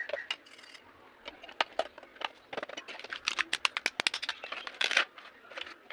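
Toy packaging being handled during an unboxing: a quick, irregular run of plastic clicks and crinkles, busiest in the second half.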